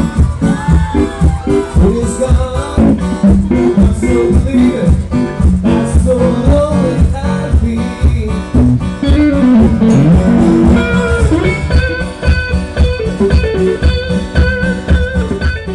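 Band music with guitar and a singing voice over a steady beat.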